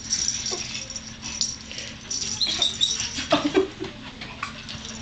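Infants making short high-pitched squeals and vocal sounds, loudest about three seconds in, over small clicks and knocks from a plastic toy ball being handled.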